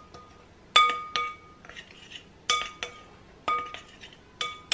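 A metal spoon stirring dry flour and spices in a glass mixing bowl. It clinks against the glass about seven times, mostly in quick pairs, and each strike leaves the bowl ringing briefly. Between strikes there is a soft scrape of the spoon through the flour.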